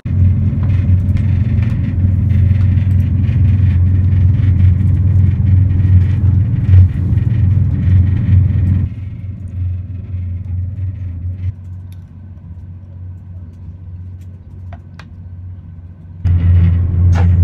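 Steady low rumble of a moving train heard from inside the carriage. It drops suddenly to a quieter hum about halfway through and comes back loud near the end.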